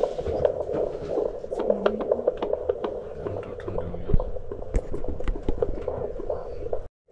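Jumper handheld fetal Doppler playing an unborn baby's heartbeat through its speaker: a fast, rhythmic pulsing beat, with clicks and knocks as the probe is moved over the belly.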